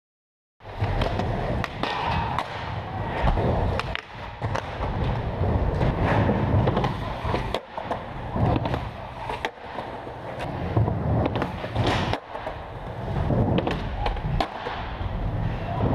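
Near silence for about half a second, then skateboard wheels rolling on indoor skatepark ramps and floor, with repeated sharp clacks and landings of the boards.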